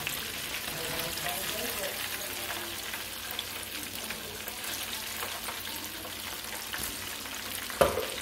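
Chicken wings deep-frying in hot oil: a steady crackling sizzle. A single loud knock sounds near the end.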